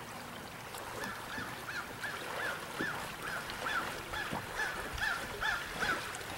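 A bird calling over and over, about two to three short rising-and-falling calls a second, starting about a second in and stopping near the end, over the steady rush of a flowing stream.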